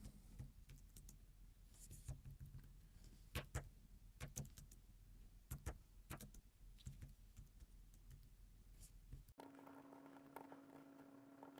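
Faint, irregular clicking of the hard keys of a roll-up Bluetooth keyboard being typed on. Near the end the clicks stop and a faint steady hum is left.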